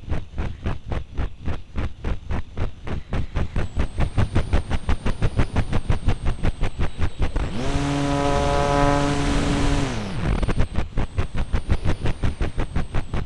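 RC model plane's motor and propeller heard from the onboard camera in flight: an even pulsing, about six beats a second, throughout. About halfway in, the motor runs up to a steady whine with loud rushing for some two seconds, then falls in pitch and cuts out as the throttle is closed.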